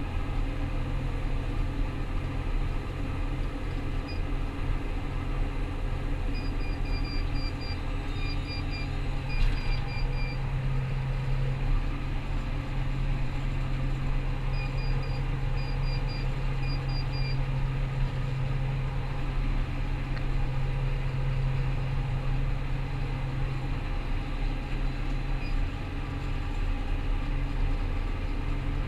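Rostselmash Vector 425 combine harvester running steadily under way, a constant low engine drone. Two runs of short, high electronic beeps sound about a quarter and about half of the way through.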